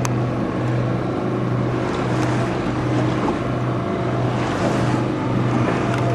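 A fishing boat's engine running steadily at trolling speed, a continuous low hum, with wind and water noise.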